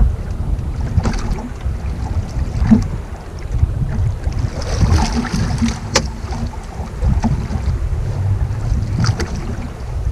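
Wind buffeting the microphone on a small boat at sea, a heavy steady rumble, with a few sharp knocks from handling tackle, the clearest about six seconds in.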